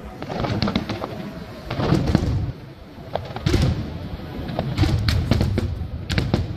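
Aerial fireworks shells bursting in quick succession, a dense run of bangs and crackles over a continuous low rumble, with louder volleys about two seconds in and again near the five-second mark.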